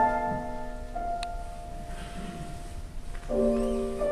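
Slow instrumental background music: held chords that change every second or two, with a faint click about a second in.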